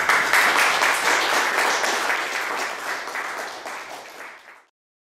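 Audience applauding: a dense crowd of hand claps, loudest at the start and fading, then cut off abruptly near the end.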